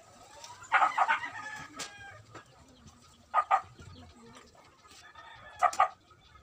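Chickens calling: one longer, crow-like call about a second in, then short sharp calls in pairs, twice.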